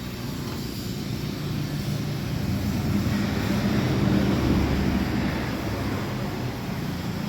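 A motor vehicle's engine passing by: a low rumble that grows louder toward the middle and then fades.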